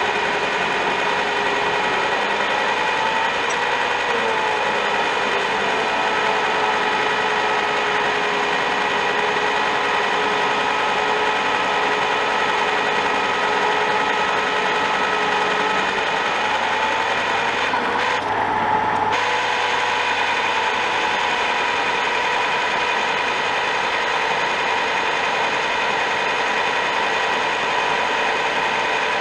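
Old knee-type milling machine running steadily, its cutter milling a steel barrel-clamp blank held in the vise. A constant machine drone with several held tones, which shift slightly about halfway through.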